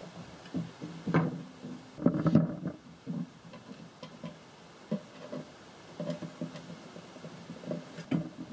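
Irregular knocks, clicks and short scrapes as a sheet-metal-clad wooden gun stock is handled on a wooden workbench and a screwdriver works screws into it. The loudest clunks come about a second in and again about two seconds in.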